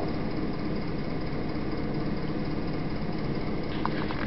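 Steady low hum with hiss and no breaks, with a few faint short sounds near the end.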